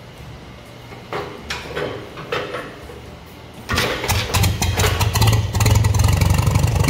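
1947 Farmall B's four-cylinder engine being started on choke: a few uneven bursts as it turns over, then it catches about four seconds in and runs, settling into a steady idle.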